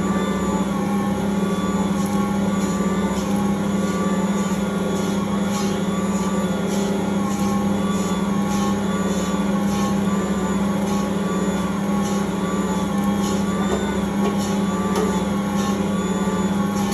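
Ankarsrum Original Assistant stand mixer running steadily, its motor turning the stainless steel bowl as the roller and scraper knead pizza dough. It makes a constant motor hum with a faint rhythmic swish repeating about once a second.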